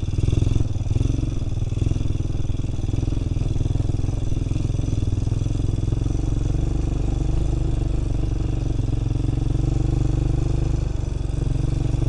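ATV (four-wheeler) engine running steadily as the quad is ridden along a muddy dirt track, heard close up from the rider's seat.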